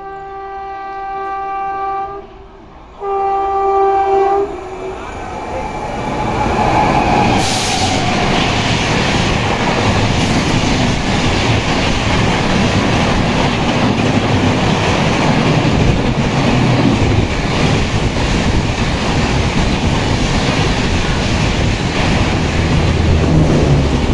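A WAP7 electric locomotive hauling the Poorva Express sounds its horn twice, a long blast and then a shorter one. The train then passes close by at about 130 km/h, a loud steady rush of wheels and coaches on the rails with a clickety-clack.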